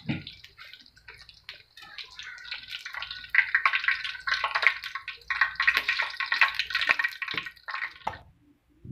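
Cabbage, carrot and egg fritter frying in hot oil in a wok, sizzling and crackling. The sizzle grows louder about three seconds in and stops abruptly near the end.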